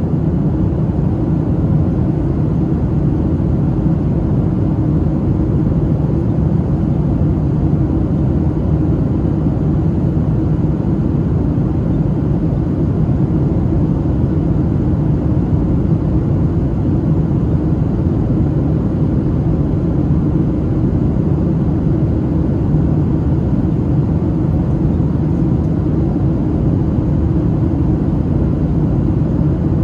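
Steady cabin noise inside a Boeing 737-700 on approach: a low, even rumble of its CFM56-7B turbofan engines and rushing airflow, heard from a window seat beside the engine.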